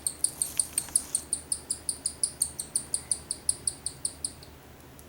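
Cockatiel chick begging to be fed: a rapid, even run of short high-pitched chirps, about six a second, that stops about four seconds in.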